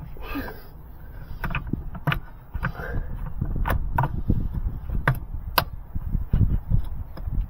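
Irregular sharp clicks and knocks from a plastic EVAP charcoal canister as a hand tugs and wiggles it against its mounting tab, trying to free it.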